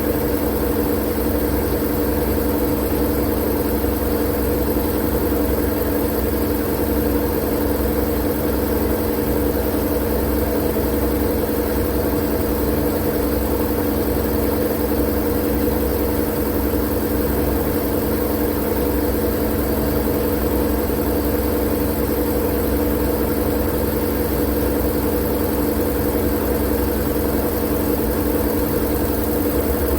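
Steady, unchanging white-noise drone with a low mechanical hum: a continuous hiss over a few held low tones and a rumble underneath.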